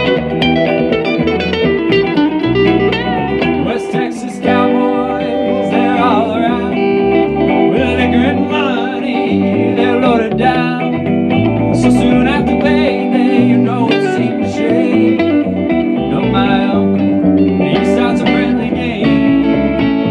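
A live band of two electric guitars and an electric bass guitar playing a country-rock song, with guitar notes bending in pitch in the middle.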